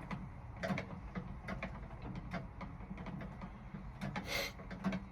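Scattered light clicks and scrapes of a hand tool working at car-door hardware, with one brief louder scrape about four seconds in.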